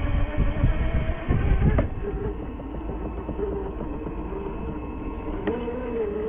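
Traxxas TRX4 RC crawler's electric motor and geared drivetrain whining as it crawls, the pitch wavering with the throttle. A heavy low rumble fills the first two seconds and ends in a sharp click, and another click comes about five and a half seconds in.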